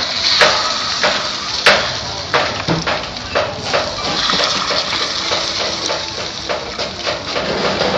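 Cakes frying in a cast-iron multi-well pan over a fire, a steady hiss, with repeated sharp clicks and scrapes of a metal spoon against the pan as the cakes are turned and lifted out.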